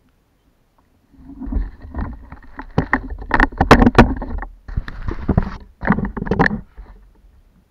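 Clattering knocks, clicks and rubbing from handling on a plastic sit-on-top kayak while a caught barracuda is held and lowered over the side. The noise starts about a second in, comes in loud irregular bursts and stops shortly before the end.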